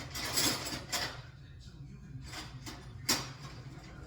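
Metal hand tools being rummaged through while hunting for a wrench: a scraping rattle in the first second, a click, then a sharp metallic clank about three seconds in, over a low steady hum.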